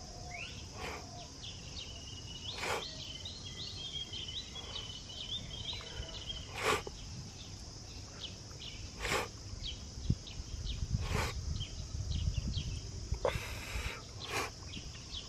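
Quiet outdoor ambience with a bird's rapid, high chirping during the first few seconds. About five sharp clicks, a couple of seconds apart, sound over a low rumble.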